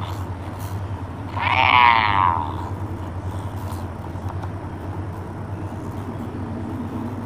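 One drawn-out wordless vocal sound about a second and a half in, lasting about a second, over a steady low hum.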